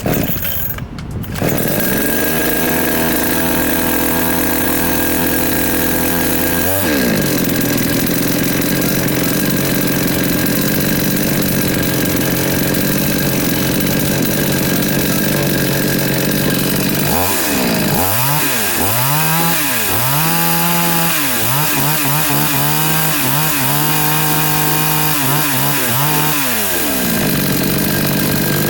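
Huyosen two-stroke gas chainsaw engine starting about a second in and running steadily. Over the last third it is revved up and down about ten times, then drops back to a steady run near the end.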